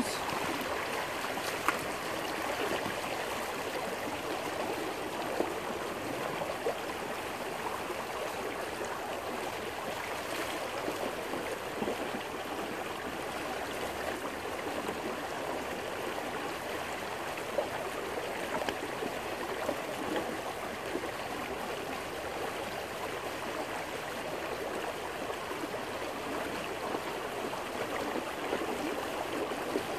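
Small creek running steadily over stones in a shallow riffle, a constant rushing of water.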